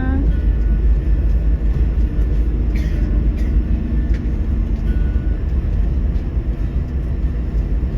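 Steady low rumble of a moving bus: engine and road noise.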